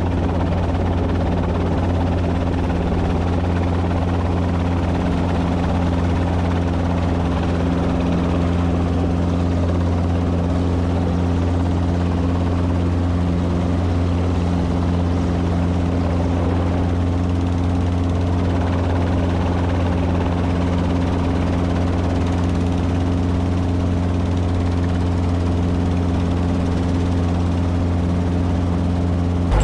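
Light helicopter in flight, heard from inside the cockpit: a steady, unchanging drone of rotor and engine with a deep hum.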